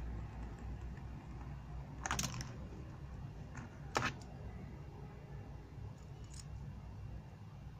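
Plastic fidget spinners being handled, clicking: a short clatter of clicks about two seconds in, one sharp click at about four seconds as a hand takes the spinning toy, and a few faint clicks after, over a low steady rumble.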